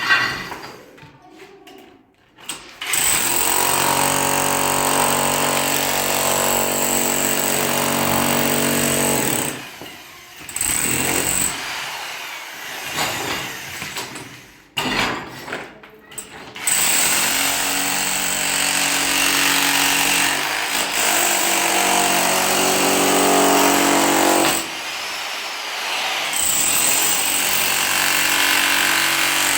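An electric power tool, like a demolition hammer, running loudly in long stretches with brief stops between them.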